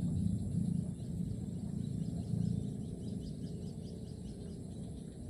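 Outdoor ambience: a low, steady rumble with faint, short high chirps of birds or insects repeating from about a second and a half in.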